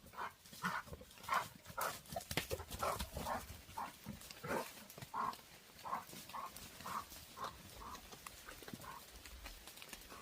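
A dog making a quick series of short, soft sounds, about two a second, that fade out near the end.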